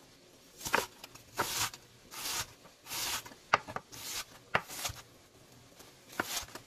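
Chef's knife chopping an onion on a cutting board: irregular strokes, each a short rasping slice, several ending in a sharp tap of the blade on the board.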